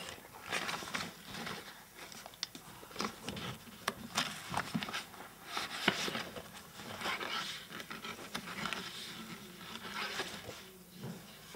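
Paper pages of a book being leafed through: irregular rustling and crinkling, with a few sharp clicks and taps.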